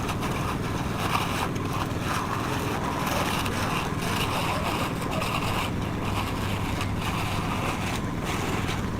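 Concrete mixer running: a steady engine drone with a rough, uneven noise above it.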